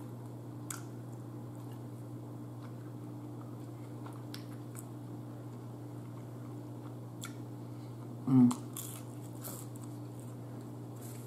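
Close-up mouth sounds of a person chewing chicken wings and crinkle-cut fries, with faint small clicks over a steady low hum. About eight seconds in, a short, louder voiced hum.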